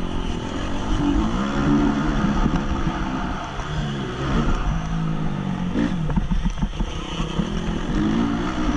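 2014 Honda CRF 250's single-cylinder four-stroke engine running hard, its pitch repeatedly rising and falling as the throttle opens and shuts, picked up close on a helmet camera with rushing air and knocks from the bike over the track.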